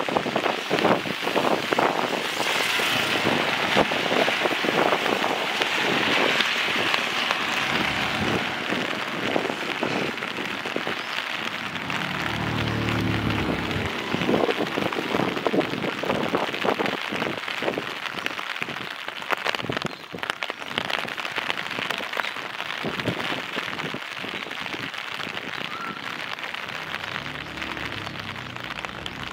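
Steady rain with a dense patter of individual drops ticking close by. A brief low hum rises and fades about twelve seconds in.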